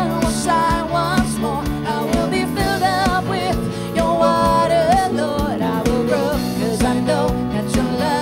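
A woman singing a slow song into a microphone with vibrato, over live instrumental accompaniment with a soft steady beat.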